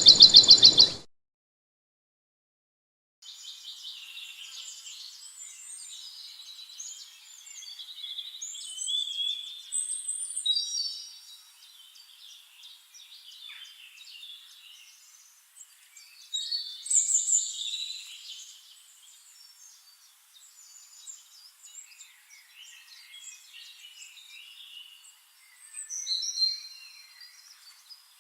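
A loud high-pitched sound cuts off about a second in, and after a short silence many birds chirp and sing: a busy mix of high, varied calls and trills, louder in bursts a few times.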